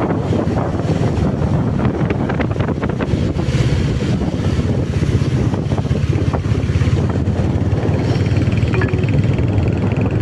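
Steady wind rumble buffeting the microphone of a moving motorcycle, mixed with road and vehicle noise.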